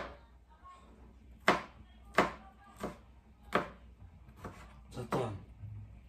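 Chef's knife slicing onion on a plastic cutting board: about seven sharp knocks of the blade hitting the board, at an uneven pace.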